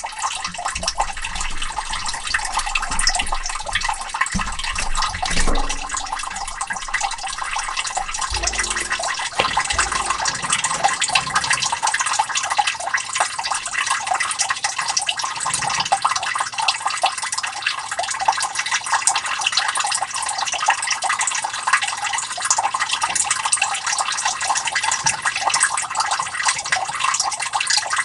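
Water trickling and splashing steadily into a sump pit as it fills, with the pump not yet running. A few dull bumps come in the first ten seconds.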